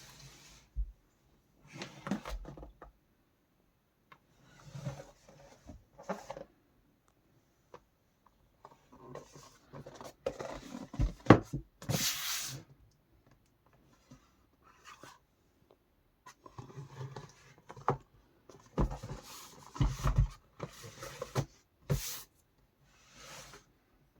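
Packaging being handled during an unboxing: intermittent rubbing and rustling with sharp knocks, a loud hissing scrape about halfway through, and a busier run of handling near the end.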